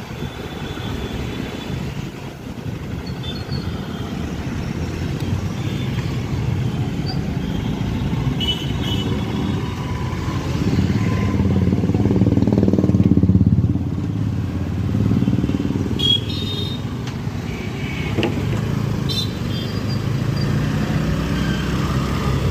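Busy street traffic: motorcycle and auto-rickshaw engines running steadily close by, with a louder engine rumble swelling about halfway through. A few brief high-pitched toots sound over it.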